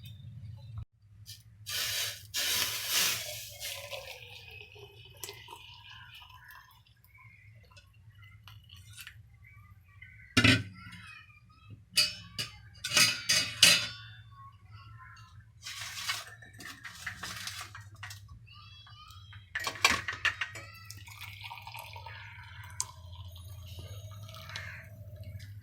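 A freshly boiled herbal decoction (kashayam) being strained: pouring and dripping liquid, with steel kitchen utensils clinking and clattering now and then. A steady low hum runs underneath.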